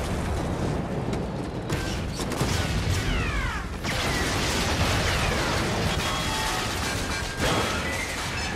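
Battle sound effects of explosions and fire aboard a warship under attack, a continuous din of blasts and crackling debris. Several falling whistling tones come about three seconds in, and a fresh blast hits about seven and a half seconds in.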